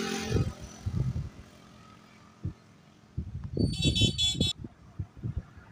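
A small motor scooter passing close by, its engine loudest at the start and fading away over about a second. Around three and a half seconds in comes a brief high-pitched sound in several quick pulses, with scattered low thumps around it.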